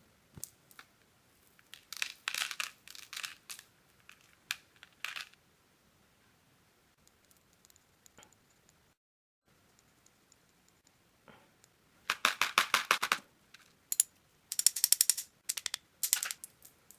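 Rapid, fine rattling clicks of small grains being poured or shaken, in short bursts about two seconds in and again near the end, as coarse salt and glitter go onto the glue.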